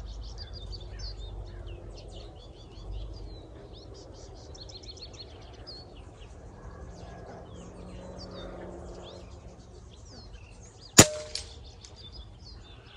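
A single shot from a scoped bolt-action rifle near the end, followed a fraction of a second later by a fainter strike on the target downrange. Birds chirp throughout.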